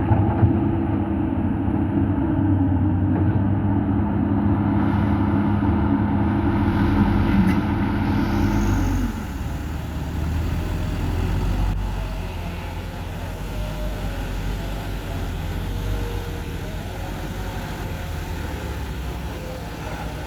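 Heavy diesel engines of an excavator and dump truck running steadily. A higher engine hum stops about nine seconds in, leaving a lower diesel rumble.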